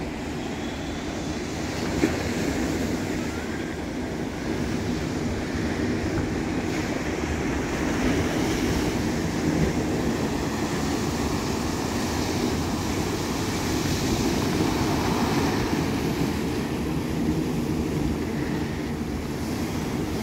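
Sea surf breaking and washing onto a rocky shore and concrete slipway: a steady rushing roar, with wind buffeting the microphone. A single brief click about two seconds in.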